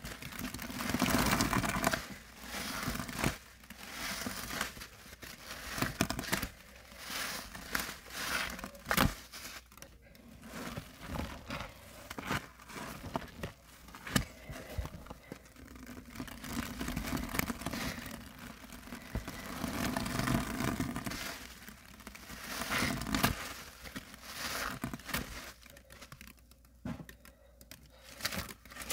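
A wet, soapy foam sponge squeezed and wrung over and over by gloved hands, each squeeze a swell of wet squelching with sharp little clicks and pops, with water running off it.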